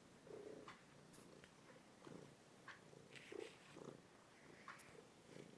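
Domestic cat purring faintly, close on a phone's microphone, the purr coming in pulses, with a few light crackles.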